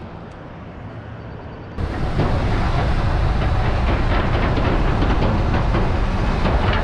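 Quiet outdoor sound for about the first two seconds, then a loud, steady rumble of a pickup truck crossing a steel truss bridge, with rapid clattering of the tyres over the metal deck panels.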